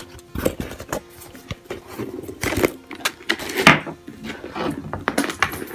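Handling noises from a leather bag with a metal chain strap as it is moved about and set on a hard countertop: rustling with scattered light clicks and knocks, loudest about three and a half seconds in.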